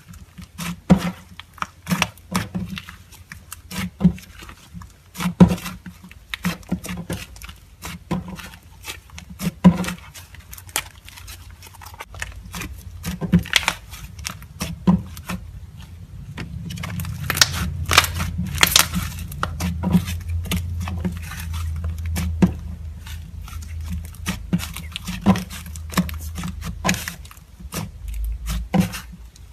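Butter slime being squished and poked by hand, giving a dense, irregular run of soft sticky clicks and crackles. A low rumble runs under it through the second half.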